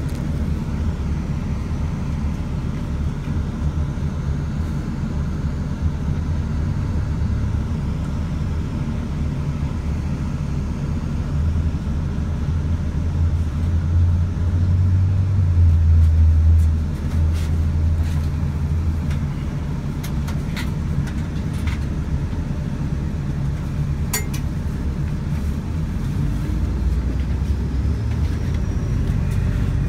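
Steady low rumble of a vehicle running, swelling for a few seconds about halfway through, with a few light clicks later on.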